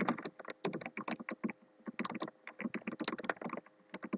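Typing on a computer keyboard: quick runs of keystroke clicks separated by short pauses.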